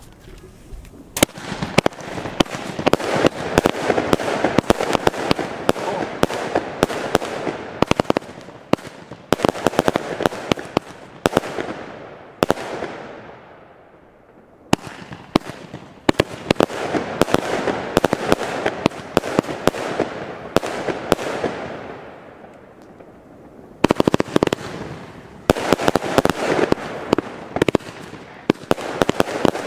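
Firework cake firing: a rapid run of shots and bursts with dense crackling. It comes in three waves, with brief lulls about 13 and 23 seconds in.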